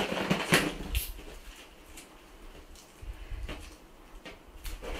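Fingers pinching and stretching the rubber neck of a large latex balloon while trying to tie it off: short rubbing and snapping sounds, loudest in the first second, then fainter scattered rubs and clicks.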